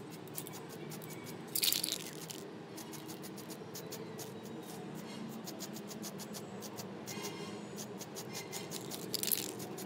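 Aerosol spray-paint can hissing in two short bursts, one about a second and a half in and one near the end, over a steady low background with many faint clicks.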